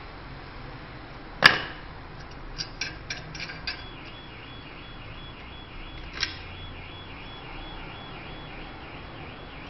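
Sharp metallic clicks and taps of a brass fitting on metal-plastic pipe being pushed and fitted into a brass ball valve by hand: one loud click about a second and a half in, a quick run of lighter clicks around three seconds, and another click near six seconds.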